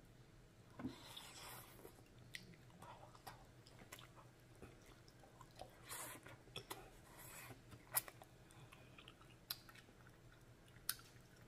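Faint mouth sounds of eating noodles: a slurp about a second in and another about six seconds in, soft wet chewing between them, and a few sharp clicks in the second half.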